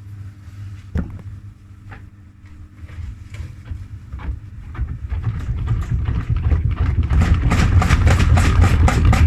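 Front-loading washing machine drum speeding up in a spin with an unbalanced load: a low rumble that grows steadily louder. Single knocks come about once a second at first, then turn into rapid rattling and banging over the last few seconds.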